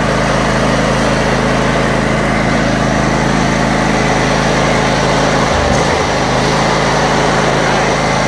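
Briggs & Stratton Intek engine of a 20 hp Ariens riding mower running steadily at a constant speed, heard up close over the open engine bay. There is a brief low wobble in the hum about five and a half seconds in.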